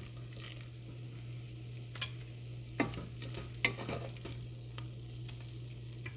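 Onion and tomato mixture sizzling softly in a pan as a spoon stirs and scoops it out, with a few sharp knocks of the spoon against the vessel near the middle, over a steady low hum.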